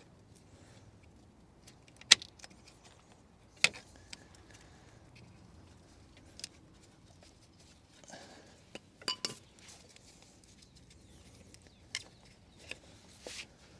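Scattered sharp metallic clicks and clinks from hand tools and loose car parts being handled. The loudest comes about two seconds in, and a small cluster comes near the middle.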